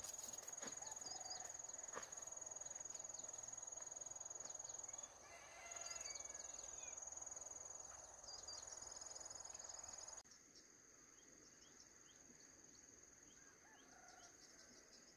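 An insect's steady high-pitched trill, with scattered short bird chirps over it. The background drops quieter about two-thirds of the way through while the trill goes on.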